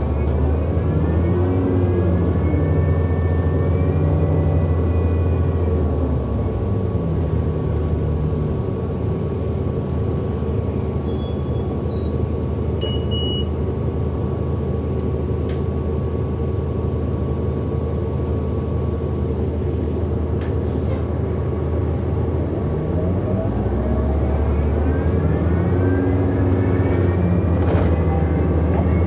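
Hybrid-electric city bus heard from inside, its drive motor whining with a strong low hum. Tones climb in pitch and level off over the first few seconds, hold steady through the middle, and climb again from about 23 seconds in as the bus picks up speed. This is the motor sound the uploader calls weird.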